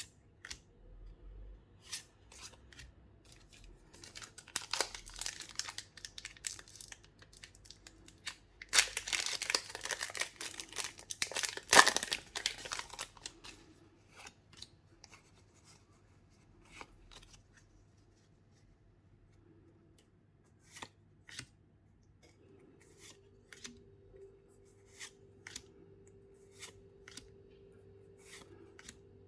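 Pokémon card box packaging being torn open and crinkled by hand, in two busy stretches with the loudest tear about twelve seconds in. Scattered light clicks and taps of handling follow, and a faint steady hum comes in after about twenty-two seconds.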